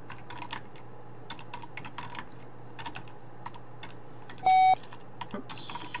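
Typing on a computer keyboard: a run of quick key clicks as a command is entered. A short, loud electronic beep sounds once, about four and a half seconds in.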